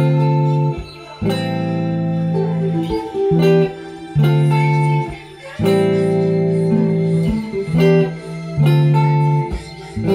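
An electric guitar and an acoustic guitar playing chords together with no singing, each chord ringing for a second or two before a short break.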